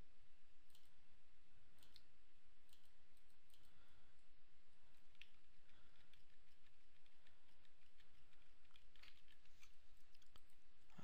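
Scattered, irregular clicks of a computer mouse and keyboard used to work a 3D modelling program, over a faint steady background hiss. The clicks come a little more often near the end.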